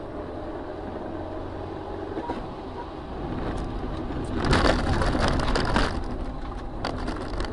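Car on the road with a steady low rumble, then a loud crunching crash about four and a half seconds in, lasting about a second and a half: a vehicle collision.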